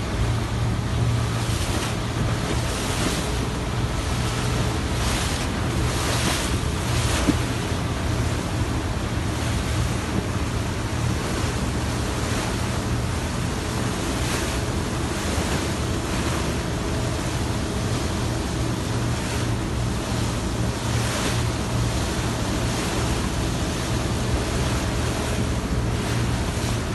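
Steady low hum of a small boat's engine under the rush and splash of water, with wind buffeting the microphone in repeated gusts.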